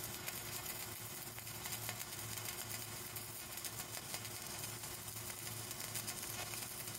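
Flux-cored arc welding arc crackling steadily with many fine pops, over a low hum.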